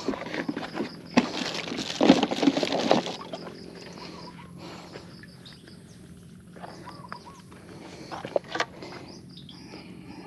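A loud, noisy commotion for the first three seconds, then quieter open-field ambience with birds chirping in short high calls.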